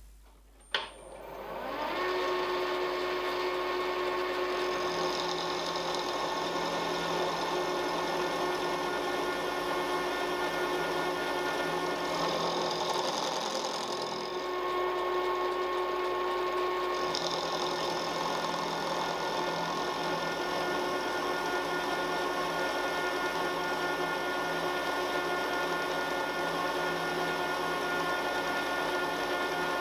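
A click, then a milling machine's spindle motor spins up with a rising whine and settles into steady running. A 10 mm end mill then cuts a 1 mm deep slot across a mild steel block, with an even machine whine and several steady tones.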